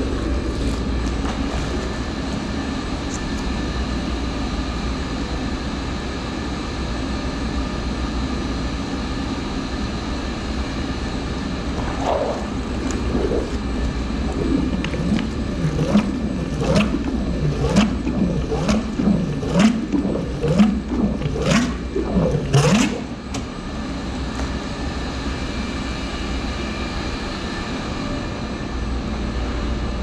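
Steady hum of boiler-room pumps. For about ten seconds in the middle, repeated gurgling glugs, about two a second, as a rod is worked in a floor drain whose P-trap is plugged with sand.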